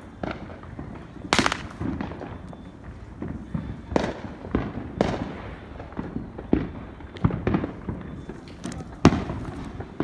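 Fireworks going off in an irregular string of bangs and pops, some sharp and close, others duller and farther away, with a loud bang about a second and a half in and another near the end.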